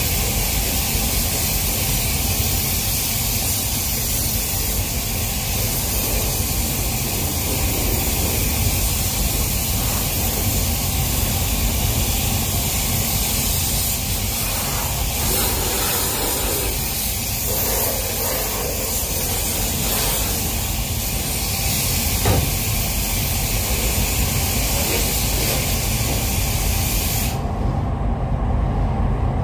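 Compressed-air paint spray gun hissing steadily as it lays blue base coat on a car's door and quarter panel, over the steady low rumble of the spray booth's ventilation. The hiss cuts off about 27 seconds in, leaving the booth rumble.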